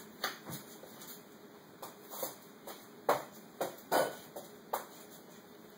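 A string of short, sharp clicks at irregular spacing, the loudest about three and four seconds in.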